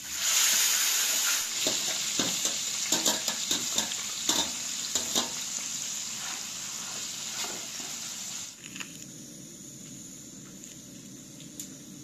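Sliced onions dropped into hot oil in a wide metal pan, sizzling loudly at once, with clinks and scrapes of a slotted metal ladle stirring them. The sizzle eases off and drops away about eight seconds in.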